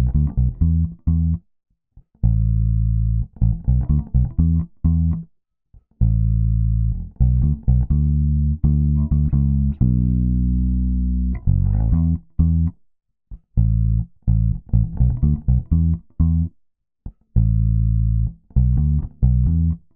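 Electric bass guitar played solo through the Weight Tank WT-COMP compressor: short plucked low notes in choppy phrases with brief silences between them, and one longer held note about ten seconds in.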